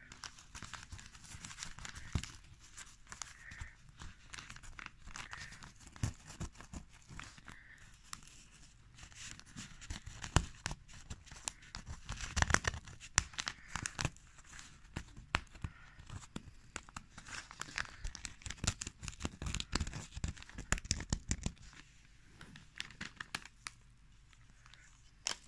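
Fingers scratching dried strawberry pulp and seeds off newspaper, the paper crinkling and rustling in a run of small scratches and crackles. It eases off a few seconds before the end.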